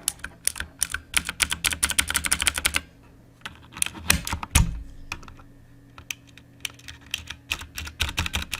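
Kailh Blue clicky switches on a Nixeus Moda v2 mechanical keyboard, a single key pressed over and over: a fast run of sharp clicks for nearly three seconds, a heavier thump about four seconds in, then slower, spaced-out clicks.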